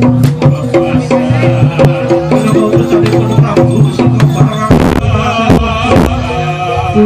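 Jaranan gamelan accompaniment: hand-drum beats over a looping melody of held metallic notes. Three sharp noisy crashes come about five to six seconds in.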